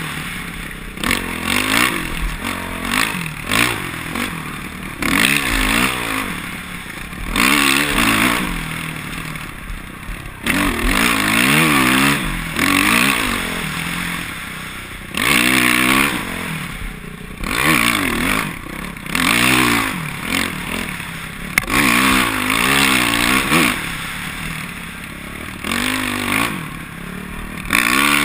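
Dirt bike engine, heard from the rider's helmet, revving up and down in short bursts every second or two as the throttle is opened and closed, with the bike clattering over the bumps.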